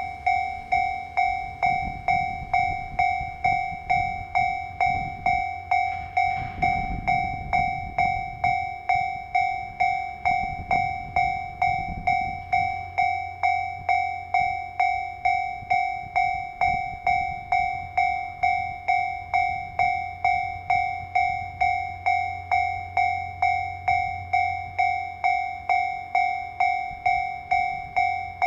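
Japanese level-crossing warning bell ringing continuously, an electronic two-tone ding repeating a little under twice a second, with the low rumble of a train moving nearby underneath.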